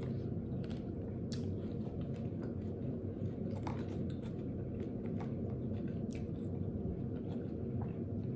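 A person chewing and biting into mango with fried chilies: scattered short crisp clicks and wet mouth sounds over a steady low hum.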